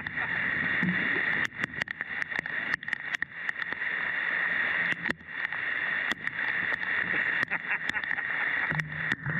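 Heavy rain pouring onto a lake surface, a steady dense hiss, with scattered sharp taps of drops striking close to the microphone.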